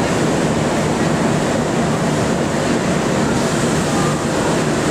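Passenger train running as it pulls into a station: a steady, loud rush of wheel and running noise with a low hum underneath.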